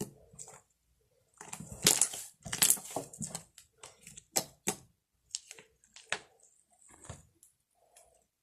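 Slime being squeezed and pressed by hand: a run of irregular sharp pops and clicks, loudest about two seconds in, with short pauses between squeezes.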